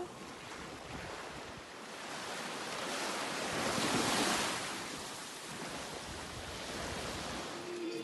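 Small waves washing on a sandy beach, with wind on the microphone; the surf swells up about halfway through and then eases off.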